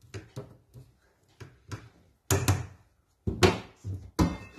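Light clicks of a metal spoon against the tart dish as jam is spread over the dough, then several louder knocks and clunks of kitchenware: two close together about two seconds in and more near the end.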